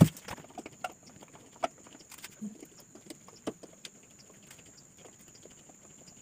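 Faint, scattered clicks and taps of hand work at a wall: a small fitting pushed into a freshly drilled hole to mount a whiteboard.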